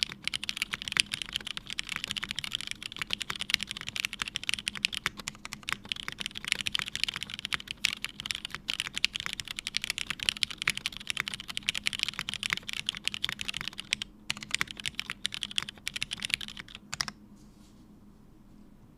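Fast, continuous typing on a custom mechanical keyboard with lubed Cherry Hyperglide Black linear switches, a half FR4 plate and GMK keycaps: a dense stream of key clacks. The typing breaks briefly once and stops about two seconds before the end.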